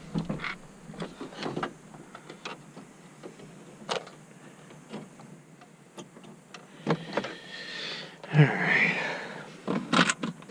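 Scattered light clicks and small knocks of hands handling parts, then a louder rustling scrape with a thump about eight seconds in, followed by a few more clicks.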